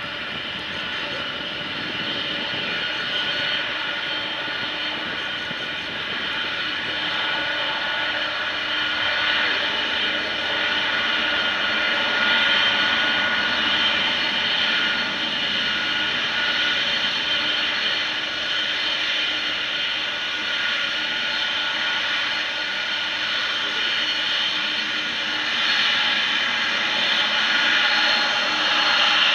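Four Pratt & Whitney PW4056 turbofans of a Boeing 747-400 freighter running at low taxi thrust as it turns onto the runway: a steady jet whine with several held tones, slowly growing louder and loudest near the end.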